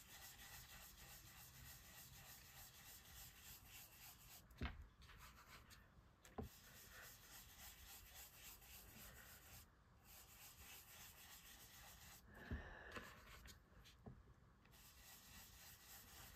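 Faint, steady rubbing of an ink blending tool being worked over cardstock, with a few soft taps, the clearest about four and a half seconds in.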